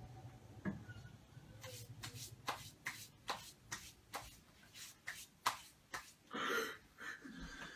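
Faint, irregular sharp clicks and handling noise, about a dozen over several seconds, with one short breathy noise about six and a half seconds in.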